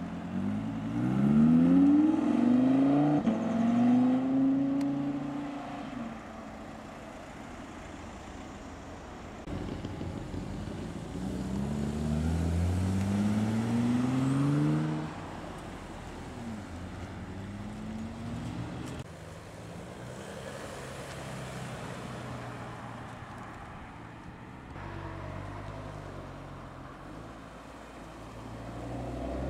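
Audi performance cars accelerating away one after another. An R8's V10 revs up hard at the start, its note rising twice through a gear change. About eleven seconds in, a second car accelerates through the gears, with lower engine rumble between the runs.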